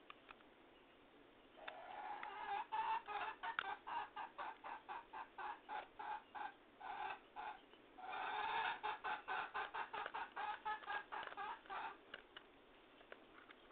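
A hen cackling in two long bouts of rapid, repeated clucks, each bout opening with a longer drawn-out note.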